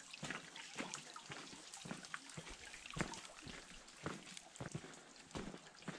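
Trickling, running water with a steady hiss, broken by irregular sharp taps and clicks about once or twice a second.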